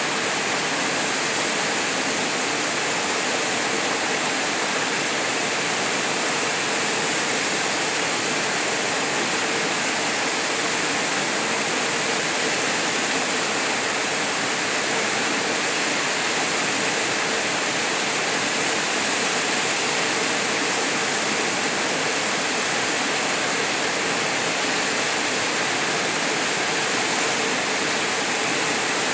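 Waterfall pouring into a pool: a steady, unchanging rush of water.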